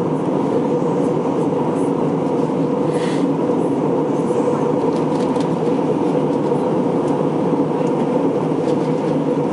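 Steady cabin drone inside an Airbus A321-231 in flight: the rush of airflow and the hum of its IAE V2500 turbofan engines, with an even, unchanging tone.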